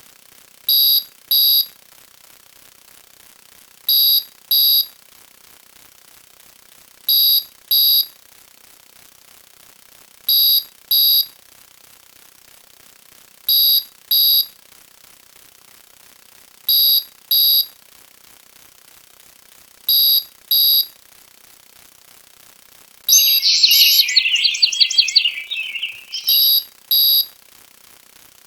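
Pairs of short, high electronic beeps, like a smoke alarm's, repeating about every three seconds. About 23 s in comes a burst of rapid high chirps lasting about three seconds, which fades as it goes.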